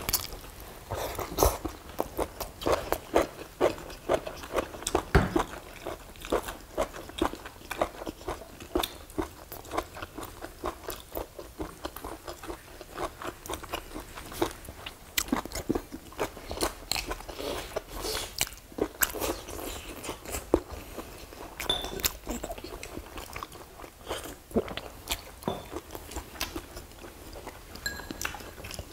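Eating sounds picked up close: chewing and crunching, with frequent sharp clicks of chopsticks against plates and bowls.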